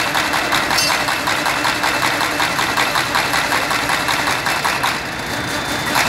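Sheet-fed paper folding machine running at speed, a steady, fast, even mechanical clatter as sheets feed through its rollers onto the delivery belts. The clatter eases briefly about five seconds in.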